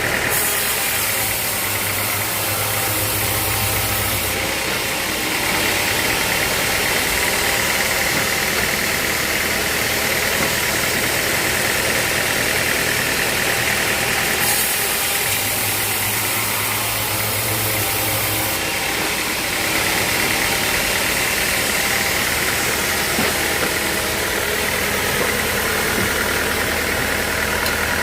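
Sawmill machinery running steadily with a mechanical drone. Twice, about a second in and again about halfway through, an extra low hum and a high hiss join for a few seconds, then drop away.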